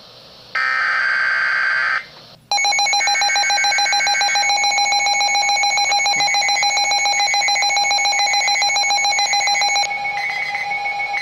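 Emergency Alert System signals: a burst of screechy digital header data lasting about a second and a half, then, after a short break, a loud, steady, rapidly pulsing electronic alert tone that begins about two seconds in. Near the end the alert tone shifts to a thinner, warbling pattern.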